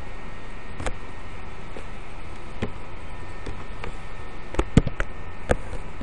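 Scattered sharp clicks of a computer mouse and keyboard over a steady microphone hiss, with a cluster of clicks about four and a half to five and a half seconds in as ad code is pasted into the editor.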